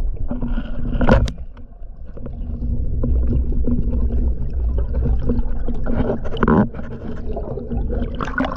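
Underwater ambience picked up by a GoPro in its housing during a free dive: a steady low rumble of water surge with scattered clicks and crackles, and a sharp knock about a second in.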